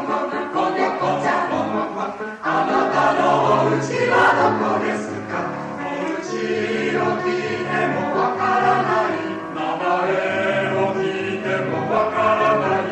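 Mixed choir singing a children's song, many voices together in chords.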